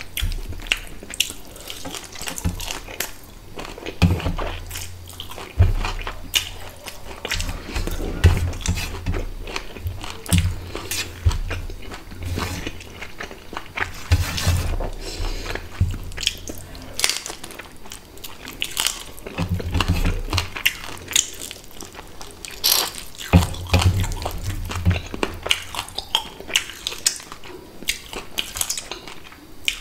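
Close-miked eating of hilsa fish head: wet chewing and lip-smacking with irregular crunches and clicks as the head and bones are bitten and picked apart with the fingers.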